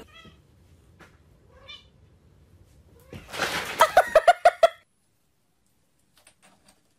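A cat giving a quick run of about six short, pitched calls, about three seconds in, over a rustling noise; a couple of faint short chirps come earlier.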